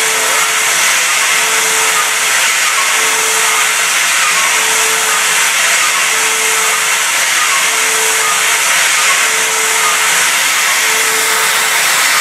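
CNC milling machine cutting P20 tool steel with a 5/8-inch five-flute carbide end mill on a VoluMill high-speed toolpath: a steady, loud, bright cutting noise. A mid-pitched hum under it swells and fades about every second and a half.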